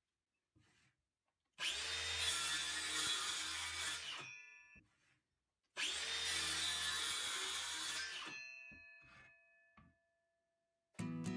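Circular saw run twice, each time starting up sharply, cutting through wood for about two and a half seconds, then winding down as the blade coasts to a stop.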